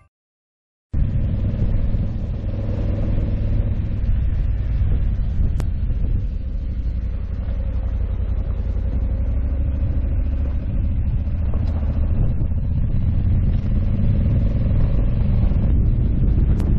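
Honda Africa Twin 1100 DCT parallel-twin motorcycle being ridden along a gravel road: a steady engine rumble mixed with wind and tyre noise, starting about a second in after a short silence, with a couple of sharp ticks.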